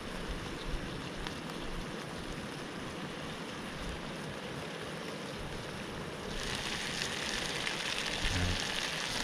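Gnocchi, smoked sausage and mushrooms sizzling in a pan over a gas-fed Trangia burner: a steady frying hiss that grows louder and brighter about six seconds in.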